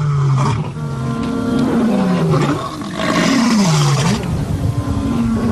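A lioness and a male lion roaring: a run of long, low calls, each sliding down in pitch, one after another. This is their territorial roaring, announcing their presence.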